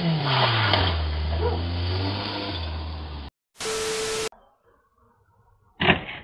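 An engine running with a wobbling note whose pitch falls steadily over about two seconds, cut off abruptly after about three seconds. A short burst of TV-static hiss with a steady tone follows, and a single sharp bang comes near the end.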